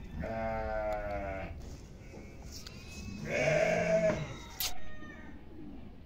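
Young goat kids bleating twice: a wavering bleat of about a second, then a second, shorter bleat about three seconds later.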